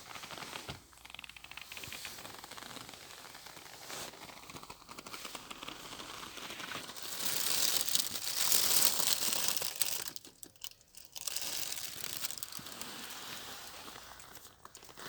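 Close crinkling and rustling handling noise with many small crackles, loudest in the middle and broken by a short pause about two-thirds of the way in.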